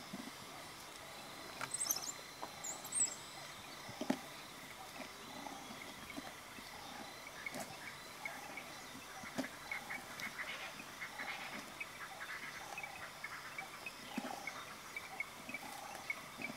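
African wild dogs at an impala kill: scattered short calls and chirps with clicks and knocks of feeding, over a light outdoor hiss; the short chirps come several a second in the second half.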